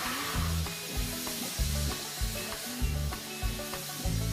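Steady hiss of steam from the 1924 Baldwin No. 90 steam locomotive as steam is let into the cylinders and it gradually takes power to pull away, under background music with a low bass line.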